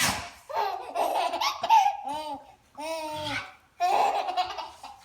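Four-month-old baby laughing in three bouts with short pauses between.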